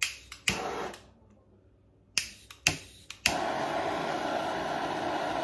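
Handheld kitchen blowtorch being lit: the igniter clicks five times, with a brief hiss of gas after the second click. A bit over three seconds in the flame catches and then burns with a steady hiss.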